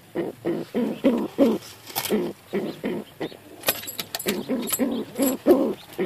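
Domestic pigeon cooing: a quick run of short low coos one after another, with a few sharp clicks from about halfway in.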